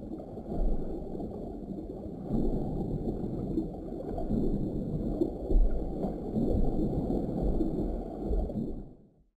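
Low, muffled rushing and gurgling of water, as heard underwater, uneven in level and fading out about nine seconds in.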